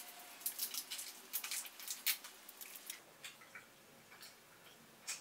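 Faint, irregular small clicks and crackles from hands handling a small object. They come thickly for about three seconds, then thin out, with one sharper click near the end.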